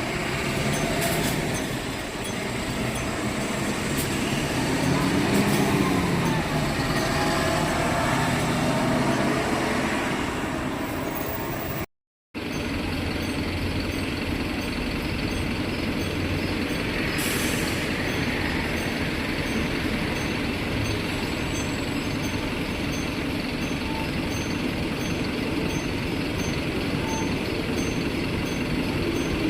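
Keifuku route bus running, with its left-turn indicator chime repeating at a steady pace over the engine and road noise. The engine note rises and falls in the first part. A sudden break about twelve seconds in, then a brief hiss a few seconds later.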